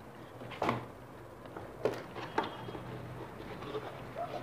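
Cardboard packaging being handled: a few short knocks and scrapes as an inner cardboard box is lifted and its flap pulled open.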